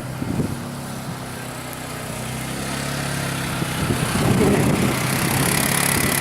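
A motor vehicle's engine running steadily, with a hiss of wind and motion growing louder over the last couple of seconds.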